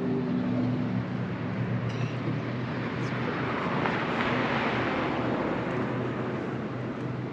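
Motor vehicle passing: a steady engine hum with a rush of noise that swells about three seconds in and fades away again.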